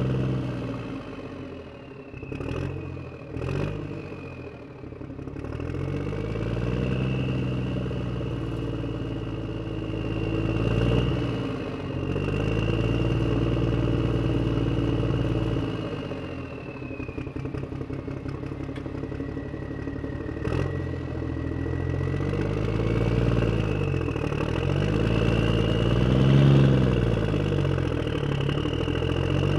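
An engine revving up and falling back again and again, with a steady high whine over it and a few sharp clicks.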